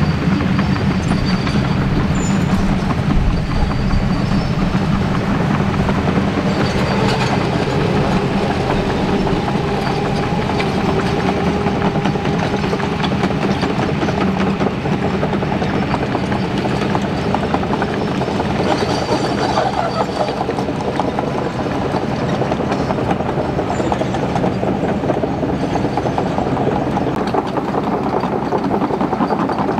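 Two Kobelco crawler excavators travelling under their own power, their diesel engines running steadily while the steel tracks clatter continuously, with a faint wavering whine over the top.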